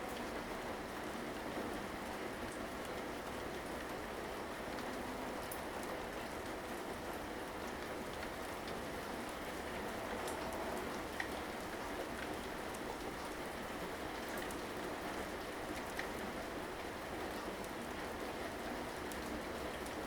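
Steady rainfall, with scattered individual drops ticking against surfaces.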